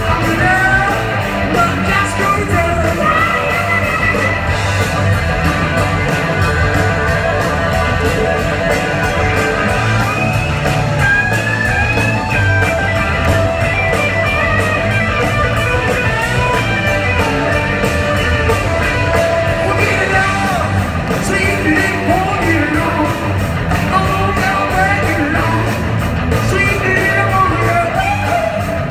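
Live rock band playing with electric guitars, drums and a lead singer.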